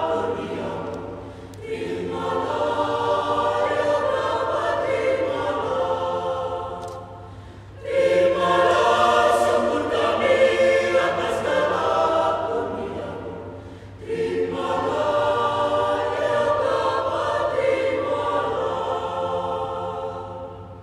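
Mixed choir of men's and women's voices singing a hymn in long sustained phrases, with short breaths between them, the last phrase fading out near the end.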